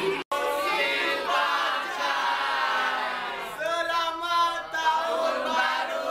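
A group of men and women singing and chanting together, a Chinese New Year greeting. The sound cuts out briefly just after the start.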